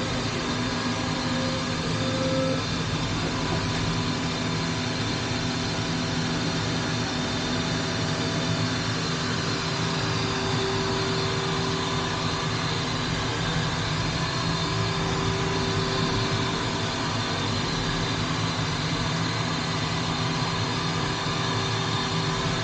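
Matsuura five-axis vertical machining center running, heard from inside its enclosure as a steady mechanical hum and hiss with whining tones as the trunnion table tilts and rotates. One whine stops a couple of seconds in, and a lower one comes in about ten seconds in and holds to near the end.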